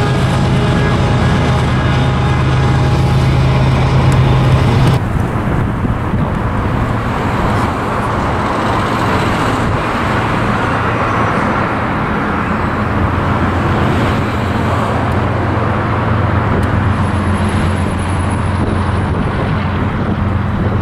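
Road traffic on the highway overpasses: a steady wash of tyre and engine noise with a low engine hum underneath. A louder steady engine drone in the first five seconds stops abruptly, about five seconds in.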